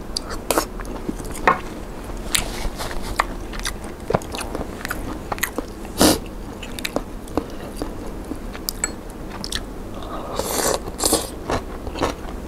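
Close-miked eating sounds: a person biting and chewing a vegetarian meatball, with many small wet mouth clicks, then a short, denser slurp of noodles about ten seconds in.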